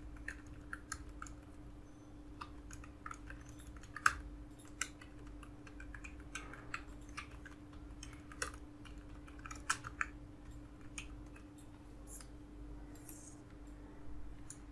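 Computer keyboard typing: irregular key clicks, a few louder key strikes among them, over a faint steady hum.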